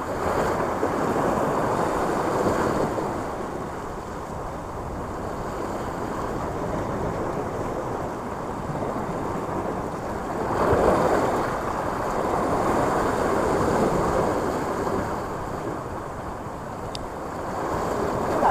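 Sea waves washing and breaking over the rocks below, a steady rushing that surges louder about halfway through, with wind buffeting the microphone.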